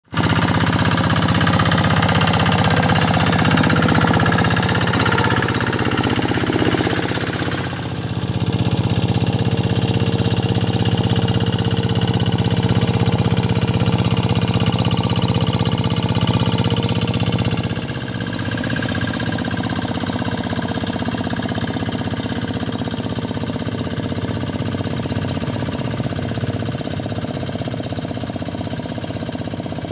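Diesel engine of a paddy-field tractor running under load in deep mud, with a rapid knocking beat. The note shifts briefly about eight seconds in and drops in level and pitch about eighteen seconds in.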